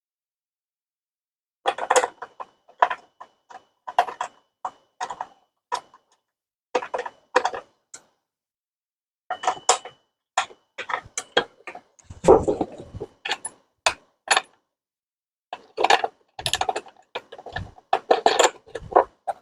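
Clicks, rattles and clanks in short bursts from metal saw parts and hand tools as a concrete saw is put together by hand. A heavier, deeper clunk comes about two-thirds of the way through.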